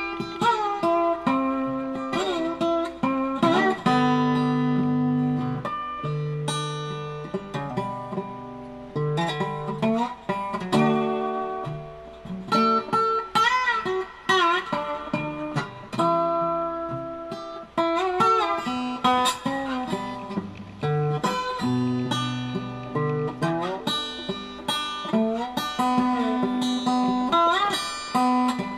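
Background music: acoustic guitar picking melodic notes with bent, sliding notes, in a bluesy style.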